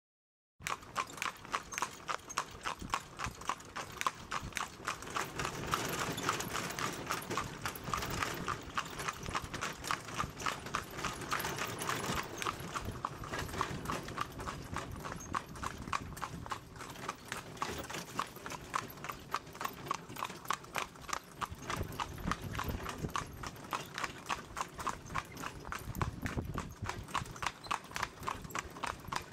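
Welsh pony's shod hooves clip-clopping on a tarmac lane in a quick, even rhythm as it pulls a carriage. The hoofbeats start suddenly about half a second in.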